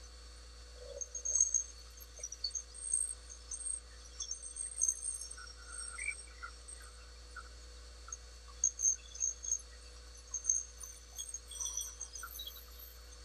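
Small scratching and clicking of a steel tool being handled and fitted against an ebony pen blank mounted on a lathe, in short irregular bursts, over a steady hum.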